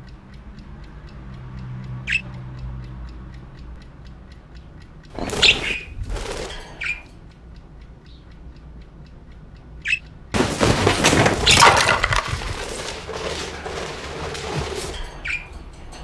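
Budgerigar giving short single chirps over a fast, even ticking of about four a second. About ten seconds in, a loud, rough, noisy sound takes over and lasts almost to the end.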